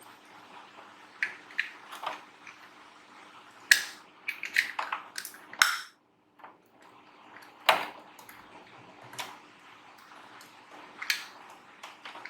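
Irregular sharp clicks and taps of tools and small machine parts being handled, about a dozen in all, the loudest about four and eight seconds in, over a faint steady hum. The sound cuts out briefly about six seconds in.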